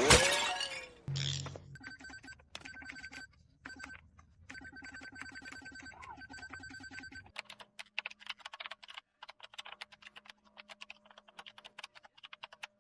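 Telephone bell ringing in stop-start bursts of rapid clattering strikes. After about seven seconds it gives way to a quieter run of rapid clicks over a faint low hum.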